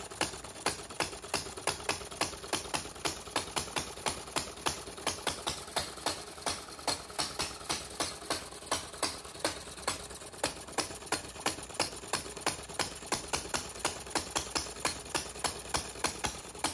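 Scale model of the 1886 Benz single-cylinder engine running steadily, making an even train of sharp clicks about four a second. The builder says it runs poorly, firing only on every second intake charge because its valve timing does not scale down well.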